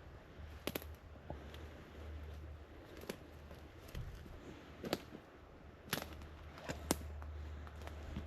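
Footsteps through forest litter, with a sharp snap or crack of dry twigs every second or two.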